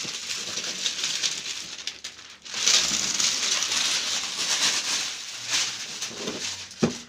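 Plastic wrapping being torn and crinkled off a cardboard gift box by hand: a continuous crackling rustle with a brief pause after about two seconds.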